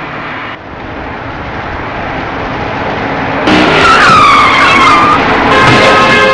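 Car tyres screeching in a skid, the squeal sliding down in pitch over steady traffic noise, starting about halfway through. It is followed near the end by a louder harsh noise.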